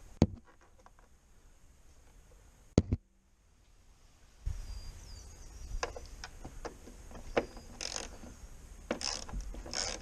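Hands feeding a wire in behind plastic engine-bay trim: two sharp plastic clicks, the first right at the start and the second nearly three seconds in, then, from about halfway, steady rustling and scraping of the wire and trim with small clicks.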